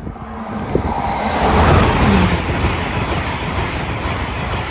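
LNER Class 801 Azuma train passing at speed through the level crossing: a rushing roar of wheels and air that swells over the first second or two, peaks about two seconds in, then carries on loud.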